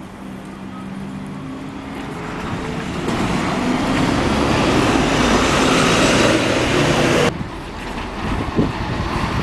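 A vehicle going past close by: a steady engine or motor hum at first, building to a loud rush of running noise that cuts off abruptly about seven seconds in. Wind buffets the microphone after the cut.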